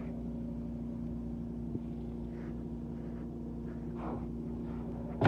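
Steady mechanical hum with one strong pitch, from a machine running in the motorhome. A sharp knock sounds at the very end as a drawer is shut.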